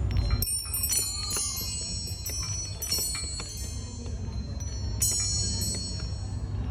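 Furin wind chime ringing in irregular strikes, each clink leaving high, thin tones that ring on and fade, over a steady low rumble.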